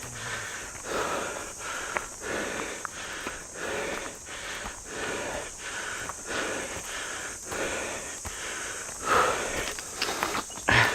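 A hiker's heavy, rapid panting, breath after breath in a steady rhythm, from the exertion of climbing a steep mountain slope. Two louder bursts come near the end.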